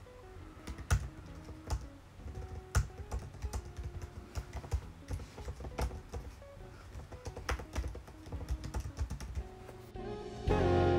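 Typing on a computer keyboard, irregular clicks several times a second, over soft background music. Louder acoustic guitar music comes in near the end.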